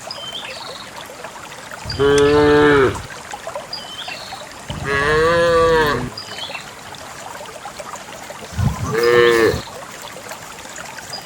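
Cows mooing as they are herded: three separate long moos, the middle one the longest, with a low outdoor background between them.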